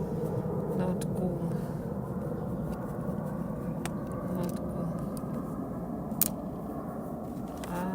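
Small clicks of a screwdriver working the screws on a laptop's case, with one sharper click about six seconds in, over a steady low background rumble.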